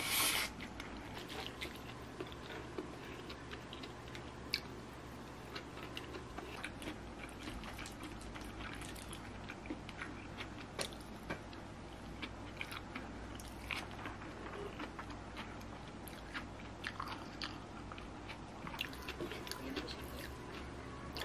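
Close-up eating sounds: a spoon tapping and scraping on a ceramic plate, scattered clicks, with soft chewing of a stir-fried rice dish. A short louder rustle comes at the very start.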